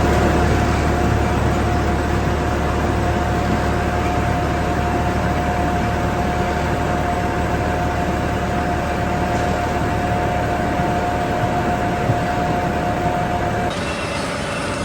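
Potato harvester at work, its engine and machinery running steadily with a low hum and a constant whine; the sound shifts abruptly about a second before the end.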